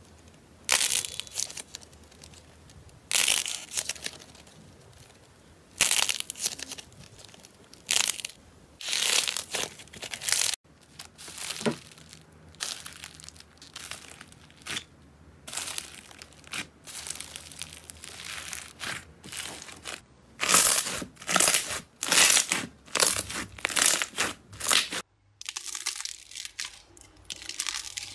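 Hands squeezing and pressing slime, giving crackling, crunching bursts a second or two apart. Clay-coated balls are being squeezed first, then a tub of pink foam-bead slime (floam) is pressed with the fingers. The sound goes quieter a few seconds before the end as soft yellow slime is stretched.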